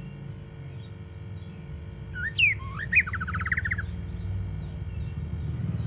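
White-rumped shama singing one phrase about two seconds in: a few loud swooping whistles, then a fast trill of short notes. A steady low rumble runs underneath.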